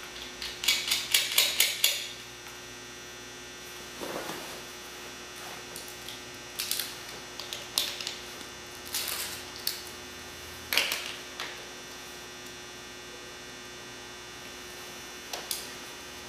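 Metal clicks and clinks of a hand wrench tightening the cable clamps on car battery terminals: a quick run of clicks at the start, then scattered single clicks. A steady electrical hum runs underneath.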